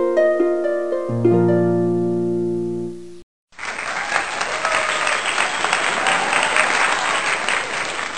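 Intro sound effects: a short plucked harp arpeggio over low sustained notes that stops about three seconds in. After a brief gap comes steady applause from a crowd.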